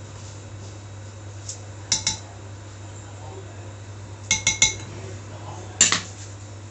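Metal utensil clinking against a dish: two clinks about two seconds in, three quick ones around four and a half seconds, then a louder one near the end. A steady low hum runs underneath.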